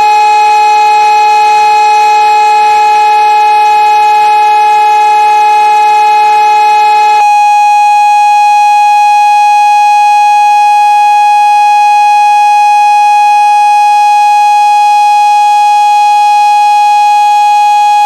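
Fire station alarm siren calling out the volunteer firefighters, sounding one loud, steady high tone. About seven seconds in, a lower tone and the background hiss drop away and the main tone carries on alone.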